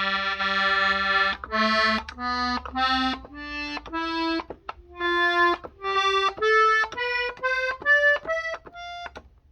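Hohner Tango II piano accordion played one treble key at a time: about fourteen single reedy notes climbing step by step up the keyboard. The first note is held for over a second and the rest are short, with faint key clicks between them.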